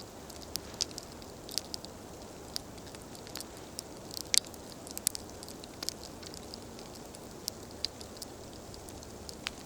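Campfire crackling: irregular sharp pops and snaps over a steady low rush of flame, with the loudest pair of pops a little before halfway.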